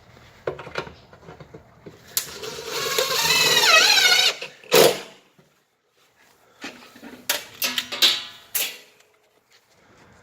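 Cordless drill driving mounting screws. The motor whirs for about two seconds with its pitch wavering under load, then there is a sharp knock. Several short bursts of the drill follow a few seconds later.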